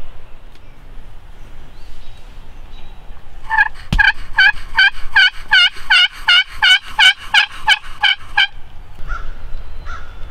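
Pot-style turkey friction call worked with a wooden striker: a run of about fifteen yelps, roughly three a second. A sharp knock comes near the start of the run, and a few softer short notes follow near the end.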